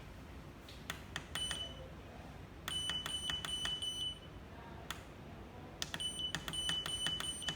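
Heat pump LCD controller beeping as its buttons are pressed to step the hot water set point: a few separate clicks, then two runs of rapid beeps over a steady high tone, about a second and a half long each.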